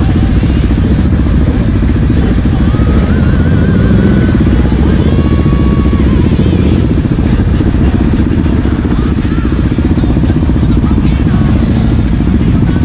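Motorcycle engines running loudly and steadily as the bikes ride off.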